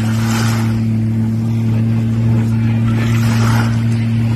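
A watercraft engine running close by at a steady pitch, with a rushing noise that swells twice.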